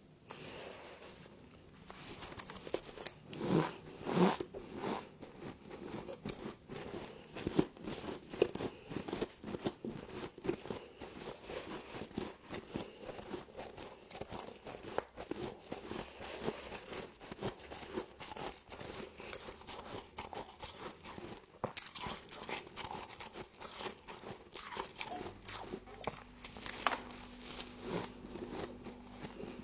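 Mouthfuls of frost being bitten and chewed close to the microphone: a dense, uneven run of crisp crunches, loudest a few seconds in.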